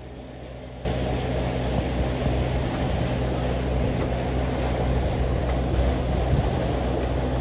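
A sailing catamaran's engine drones steadily under way, with wind and water rushing past the hull. The sound is quieter for about the first second, then holds level.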